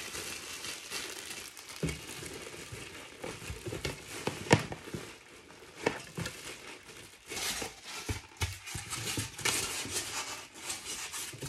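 Clear plastic wrapping crinkling as a boxed ceramic wax warmer is handled and pushed into a cardboard box, with a few sharp knocks, the loudest about four and a half seconds in.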